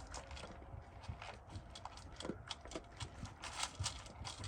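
A lively young dog moving about on a hard surface, its claws and paws making quick, irregular clicks and taps.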